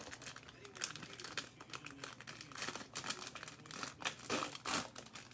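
Plastic wrapper of a trading-card pack crinkling and tearing as it is opened by hand, in a run of irregular crackles.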